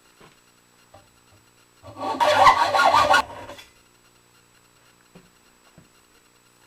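A short scraping rub, about a second and a half long, starting about two seconds in, with a few light knocks before and after it.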